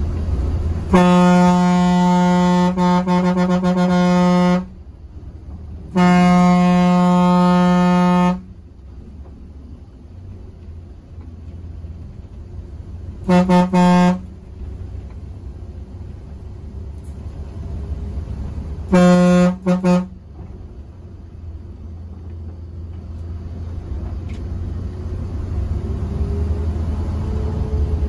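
A vehicle horn at one steady pitch: two long blasts of about three seconds each, then a short toot, then a quick double toot. Underneath is the steady low rumble of a bus engine.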